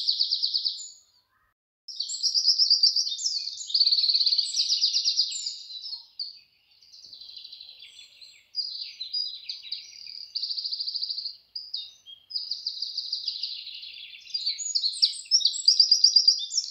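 Birds singing: high-pitched chirps and rapid trills, broken by a brief silence about a second in.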